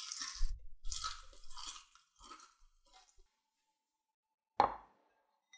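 Crunching bites and chewing of crispy rice-batter fried chicken (dakgangjeong), several crackly crunches over the first three seconds. About four and a half seconds in, a glass bowl is set down on a wooden cutting board with one sharp clink.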